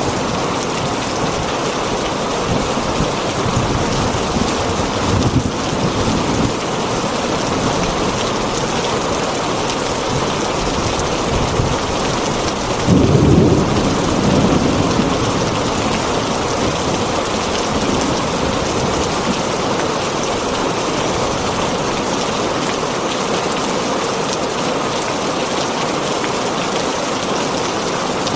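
Heavy rain drumming steadily on a tin roof, with a short low rumble of thunder about halfway through.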